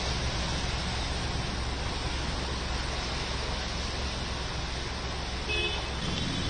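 Steady rushing wash of water on a flooded street as vehicles wade through deep standing water and throw up spray, over a low traffic hum. A short high-pitched tone sounds briefly about five and a half seconds in.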